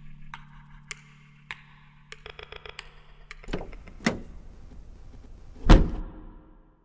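A low steady hum with light, evenly spaced ticks that stops about three and a half seconds in. Then three or four sharp knocks and dull thumps follow, the loudest and deepest just before the end.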